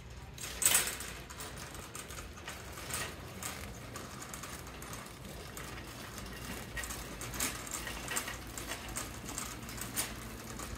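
Footsteps and small clicks, roughly one every half second, with a stronger tick about a second in, over a steady low hum from a big-box store's building systems.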